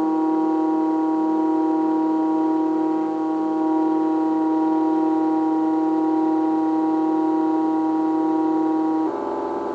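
MakerBot Thing-O-Matic 3D printer's stepper motors running through a print, a steady whine of several held tones. Near the end the tones shift briefly as the motion changes.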